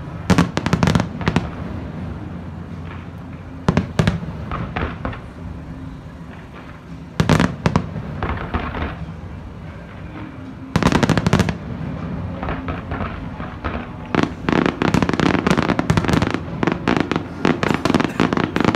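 Aerial fireworks display: clusters of sharp shell bangs with a low rumble between them, then a dense run of rapid crackling bangs over the last few seconds.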